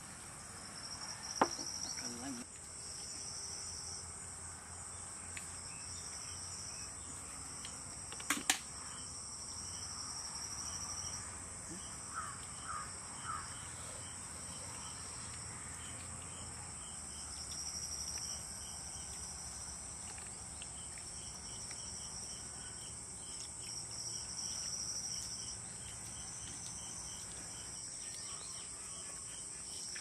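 Insects shrilling steadily: a constant high buzz with a higher pulsing trill that comes and goes in runs of a second or two. A few sharp clicks stand out, once shortly after the start and a quick pair about eight seconds in.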